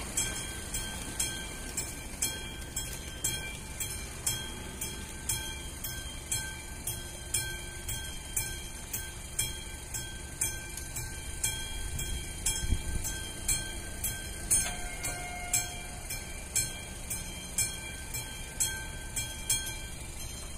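Classic mechanical warning bell of an AŽD 71 railway level crossing ringing in even strokes about twice a second, warning that a train is approaching and the crossing is closing.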